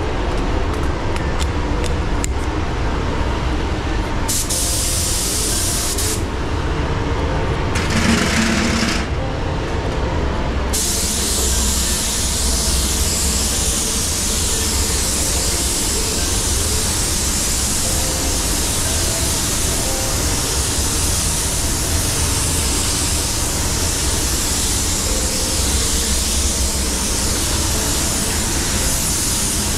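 Iwata WS-400 Series 2 spray gun spraying silver metallic base coat, a compressed-air hiss. Two short bursts, about 4 and 8 seconds in, are followed by continuous spraying from about 11 seconds in, over a steady low rumble.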